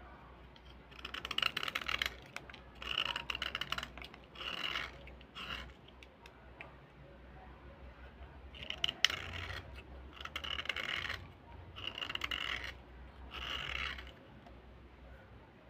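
A small metal blade scraping the surface of a slate pencil, one dry, gritty stroke after another. There are about four strokes, a pause of a few seconds with a few light clicks, then about five more.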